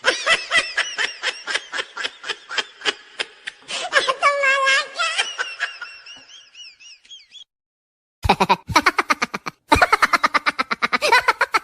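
Laughing sound effects: a long burst of rapid laughter, about four ha's a second, that fades into a high wavering wheeze. After a short silence a second fast laugh starts about eight seconds in.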